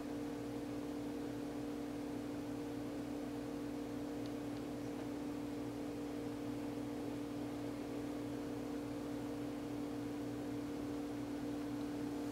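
Steady hum made of a couple of unchanging tones over a faint hiss: background room tone. A faint tick comes about four seconds in.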